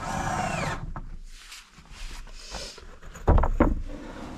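2x4 boards being set down on a plywood subfloor: some rustling at first, then two loud wooden knocks a little after three seconds in as the boards land.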